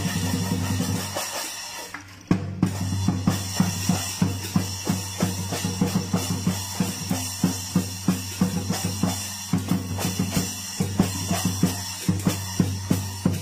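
Chinese lion dance drum band: a large drum beaten in a fast, steady rhythm with cymbals clashing, about three strokes a second. The beat picks up again after a brief drop in sound about two seconds in.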